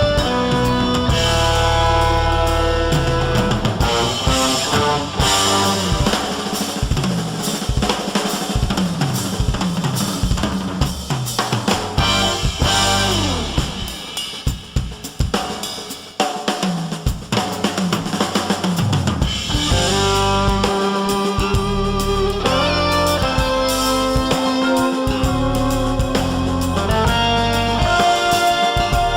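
Background music with a drum kit, held melodic notes and a steady beat, thinning out briefly about halfway through before the full band returns.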